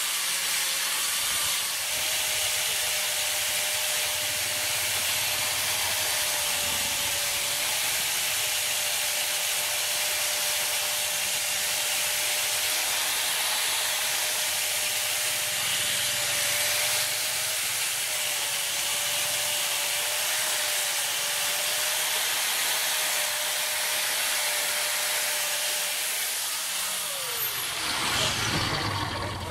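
INGCO electric angle grinder running steadily with an abrasive disc grinding and sanding the steel head of a ball peen hammer: a steady motor whine under a continuous grinding hiss. Near the end it is switched off and the whine drops in pitch as the disc spins down.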